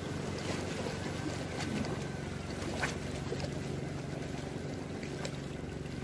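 Seashore ambience on a rocky shore: wind on the microphone and small waves washing against the rocks, with a faint steady low hum underneath and a few faint clicks.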